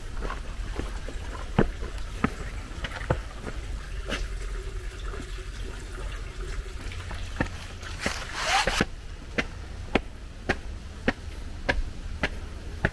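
Footsteps climbing stone steps: a sharp step sound, uneven at first and then regular at a little under two a second in the second half, over a steady low rumble, with a brief rustle about eight seconds in.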